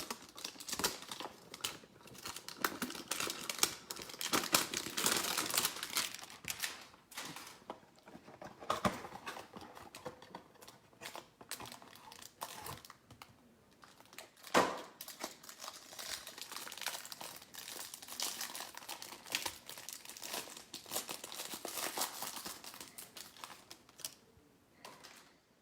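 Plastic wrapping on a pack of trading cards crinkling and tearing as it is opened and handled, with many small crackles and one sharp snap about halfway through.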